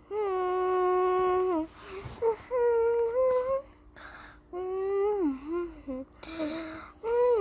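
A voice singing a melody without clear words in long held notes, several ending in a downward slide, with short breaths between the phrases.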